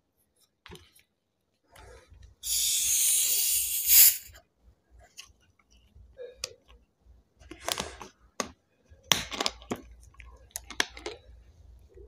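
Hiss of pressurised gas escaping as the cap of a 2-litre Coca-Cola bottle is twisted open, lasting about a second and a half and ending sharply as the cap comes free. Then a few short clicks and knocks.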